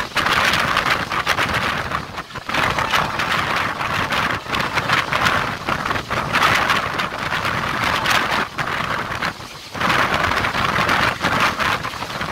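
Rushing wind and running noise from a moving passenger train, heard from the open door of a coach with the air rushing past the microphone. The rush is steady and dips briefly twice, about two seconds in and again near ten seconds.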